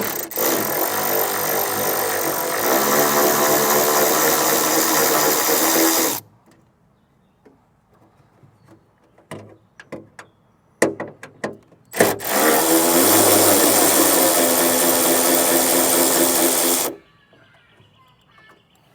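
A power driver running in two long bursts, about six and five seconds each, backing out two 10 mm bolts; the second burst rises in pitch as it starts. Small clicks of handling come between the bursts.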